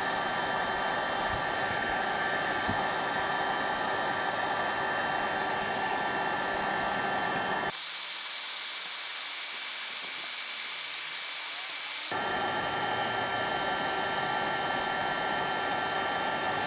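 Hot-air heat gun running steadily with a fan whine and a rush of air, heating plastic to soften it for bending. For about four seconds in the middle the sound switches abruptly to a thinner, higher hiss, then goes back to the fuller blowing.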